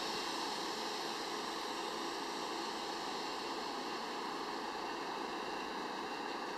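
Steady hum and hiss from a Kawasaki R68A subway train standing at the station platform.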